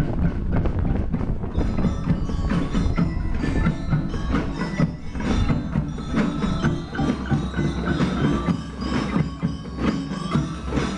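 Drum and lyre band playing: bell lyres ring out a tune over steady marching drums.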